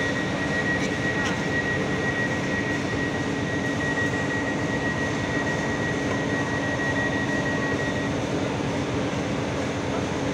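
Electric train running through the station: a steady, loud rumble of motors and wheels with a low hum and a high steady whine that stops about eight seconds in.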